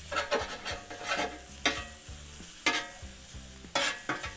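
Blackened redfish strips sizzling on a hot Blackstone flat-top griddle while a metal spatula scrapes across the steel plate and turns them, about five scrapes over the steady frying hiss.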